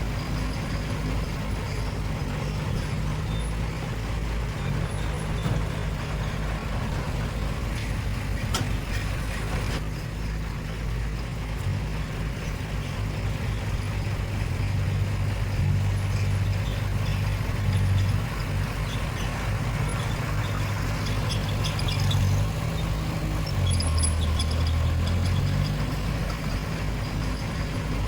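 Heavy diesel engine of earthmoving machinery running under load, its low drone shifting in pitch as it works; the engine note drops for about two seconds near the end before picking back up.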